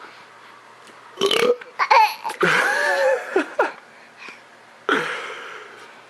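A boy burping loudly several times, starting about a second in, one burp long and drawn out with a wavering pitch, then another near the end, with laughter mixed in.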